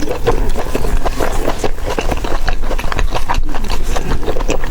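Close-miked eating: wet, irregular chewing and mouth clicks in quick succession.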